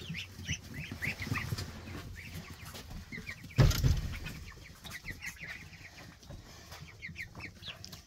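A brooder flock of young meat chickens and ducklings peeping, many short high chirps over and over. A single thump about three and a half seconds in.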